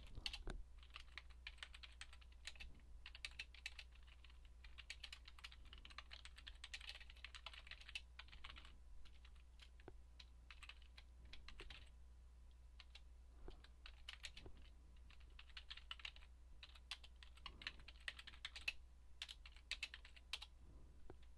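Faint typing on a computer keyboard: quick runs of keystrokes broken by short pauses.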